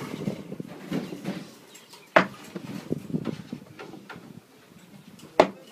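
A few sharp knocks: one about two seconds in and another near the end, over a faint background murmur.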